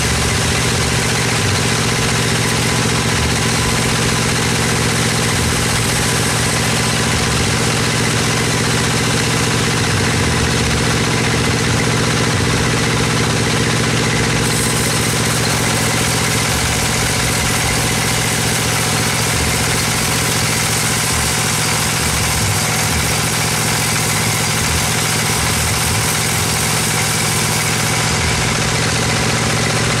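Band sawmill running steadily, its blade sawing through a teak log: a constant machine drone under a dense hiss of cutting. The hiss brightens about halfway through.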